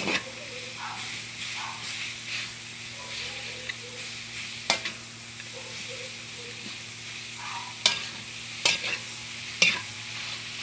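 Ground pork, shrimp, garlic and onion frying in a pan with a steady sizzle while a utensil stirs them, scraping and now and then knocking sharply against the pan, about five knocks.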